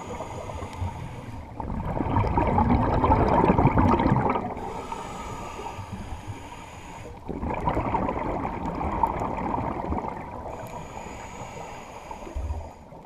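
Scuba diver breathing through a regulator underwater. Twice there is a long rush and gurgle of exhaled bubbles, and each is followed by a quieter inhale with a thin, high regulator hiss.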